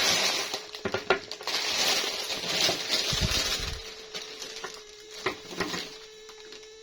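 Plastic packaging crinkling and rustling as it is handled and opened, with sharp clicks of small plastic pieces. The crinkling dies down about four seconds in, and a few quieter clicks follow.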